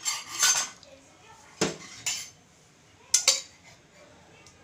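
A metal spoon clinking and scraping against a pan and bowl while ginger paste is spooned into the pan: several separate clinks, with two close together about three seconds in.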